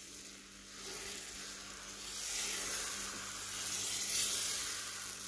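Canjeero (Somali flatbread) batter sizzling as it is poured in a spiral onto a hot non-stick pan; the sizzle builds about a second in as more batter hits the pan.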